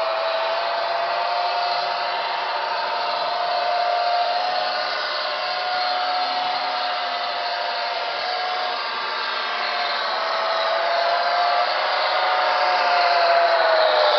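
Märklin model LINT 27 diesel railcar running on track: a steady whirring hiss with a high motor whine that wavers a little in pitch, growing louder near the end as the train comes closer.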